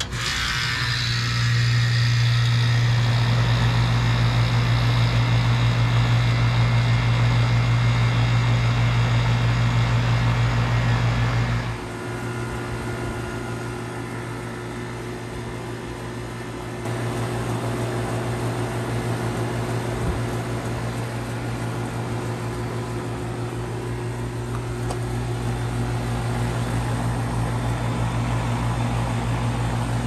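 A 2001 Carrier 10 SEER 2.5-ton central air conditioner's outdoor condenser starts up, with the compressor kicking on with a strong low hum and the condenser fan coming up to speed over the first couple of seconds. It then runs steadily. The sound drops abruptly about 12 seconds in and shifts again about 17 seconds in, and keeps running to the end.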